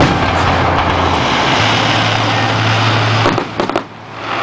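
Aerial fireworks going off in a dense, continuous crackle, with a few sharp cracks a little over three seconds in and a brief lull just after.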